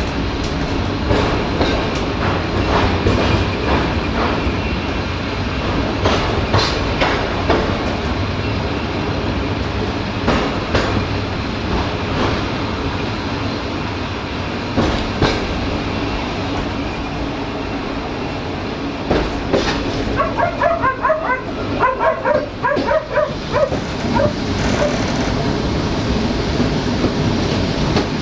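Passenger train rolling along jointed track, heard from the rear of the train: a steady rumble with the clack of wheels over rail joints every few seconds. About twenty seconds in, a run of short, sharp yelps lasts for a few seconds.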